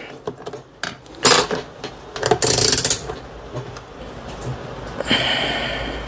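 Knocks and scraping as an Aixun P3208 bench power supply is turned around on a glass tabletop, with the loudest scrape about two and a half seconds in. A fainter squeak with several pitches starts about five seconds in.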